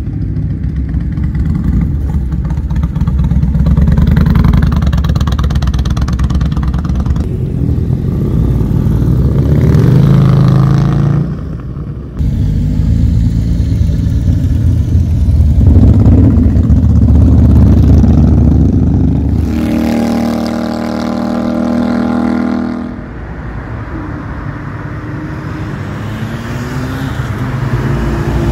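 Several motorcycle engines riding past one after another, pulling away with rising revs, the sound changing abruptly at cuts. About two thirds of the way through, one engine holds a steady note for about three seconds.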